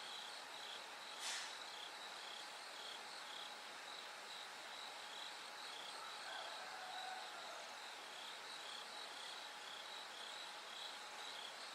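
Bell cricket chirping in a steady high-pitched rhythm, about two chirps a second, over a faint hiss. A single sharp click sounds about a second in.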